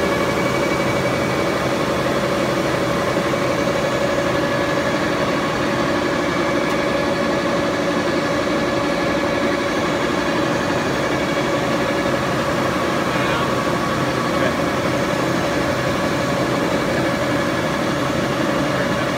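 76-inch Bullard vertical turret lathe running under power: a steady machine hum with a constant whine that does not change.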